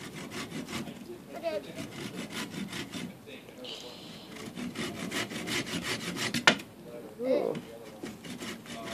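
A small hand saw cutting through a thin dead branch in quick back-and-forth strokes. A single sharp knock about two-thirds of the way through is the loudest moment.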